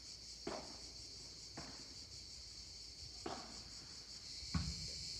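A padel rally: four sharp pocks of the ball off rackets and court, a second or more apart, over a steady high-pitched drone of cicadas.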